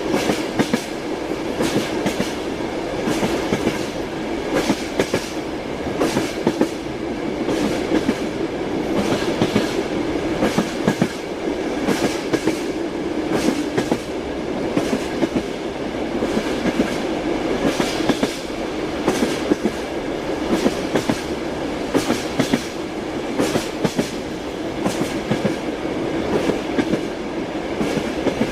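Train wheels running over rail joints: a steady rolling rumble with repeated sharp clickety-clack knocks, often in small groups every second or two.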